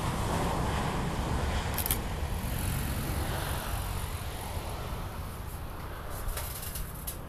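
Airbus A320-214's CFM56 jet engines rumbling as the airliner rolls out down the runway after touchdown, a broad rushing noise that slowly fades as it slows and moves away.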